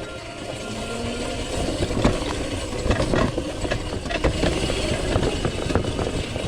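Razor SX500 electric mini supermoto being ridden off-road: a steady rumble of tyres over rough ground, with frequent clicks and rattles from the bike's chain and frame.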